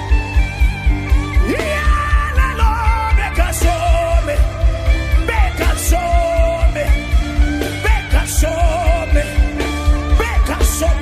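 Worship music: a fast, steady bass-drum pulse of about four beats a second under held sustained tones, with a voice chanting in long, wavering lines without recognisable words.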